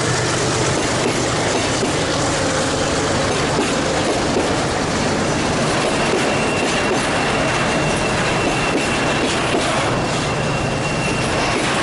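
Freight train rolling past, its wagon wheels clattering on the rails, with a thin, high wheel squeal setting in about halfway through and stopping just before the end.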